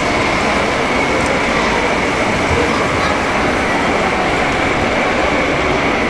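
Steady din of a large exhibition hall full of people and running RC model vehicles, with a faint high steady whine throughout.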